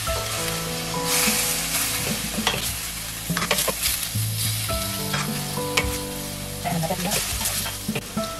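Beef pieces and sliced onion sizzling in a stainless steel frying pan, stirred with a wooden spatula that scrapes and knocks against the pan again and again. The beef is being seared until it changes colour.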